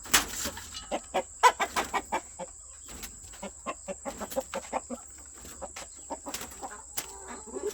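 Chickens clucking: many short, quick clucks, thickest in the first few seconds.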